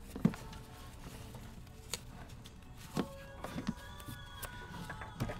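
A few scattered clicks and knocks as a car battery and its terminal cable clamps are handled and fitted into the battery tray. Faint background music runs underneath.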